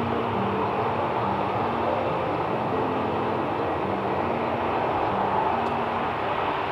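Steady rushing noise of a parked jet airliner and ground equipment on an airport apron. Slow, soft low notes of background music can be heard under it.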